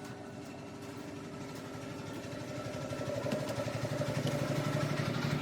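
A motor or engine running with a fast, even pulse, slowly getting louder.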